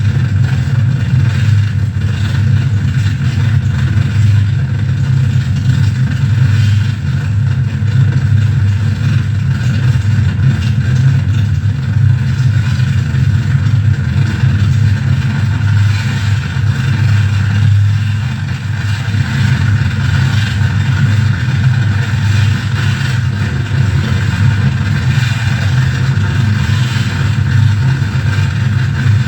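Harsh noise drone from a mixer feedback rig with reel-to-reel tape, reverb and bass: a loud, dense low rumble with a hissing upper layer, dipping briefly about two-thirds of the way in.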